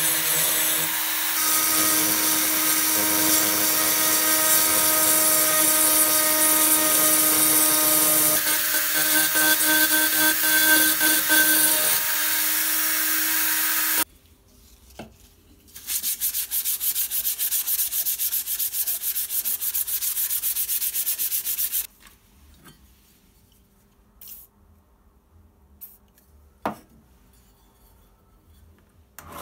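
Small handheld pen-style rotary tool running and grinding on the rusty steel of a rake head, a steady motor whine over rasping, cutting off suddenly about 14 seconds in. About two seconds later a loud, rapidly pulsing machine noise runs for some six seconds and stops abruptly, leaving only a few faint taps.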